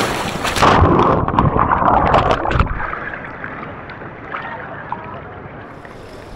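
Water splashing and rushing, with wind on the microphone. About a second in, the sound becomes muffled, with dense splashing for a couple of seconds, then settles into a quieter rush.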